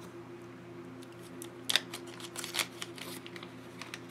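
Small clear plastic bag crinkling and rustling in the hands, with a few short sharp clicks scattered through.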